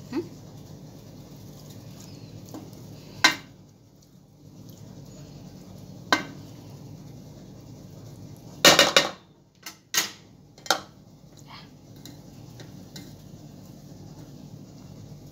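Wooden spoon stirring thick shrimp masala in an aluminium pot and knocking against the pot. Single sharp knocks come every few seconds, with a quick run of several about halfway through, over a steady low hum.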